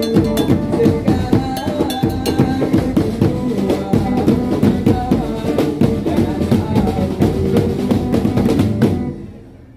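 Fast, loud patrol sahur percussion music: rapid drum strokes with a repeated melodic line over them. It stops abruptly about nine seconds in.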